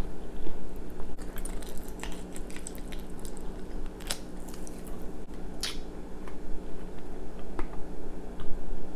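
Close-up biting and chewing of a sauced, braised chicken foot, with a few short sharp clicks as its soft bones are chewed. A steady low hum runs underneath.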